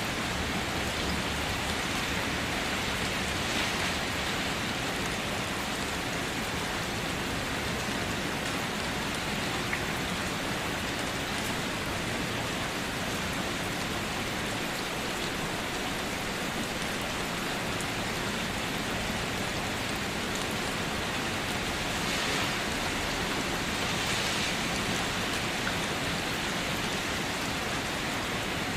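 Steady rain falling, an even hiss of drops on surfaces with slight swells now and then.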